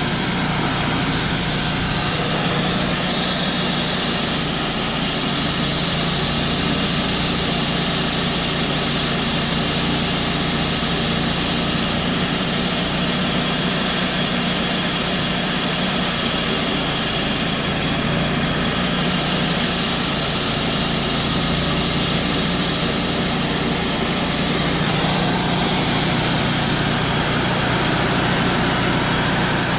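Wood-Mizer LT35 portable band sawmill running steadily: an even engine drone with a high, steady whine above it.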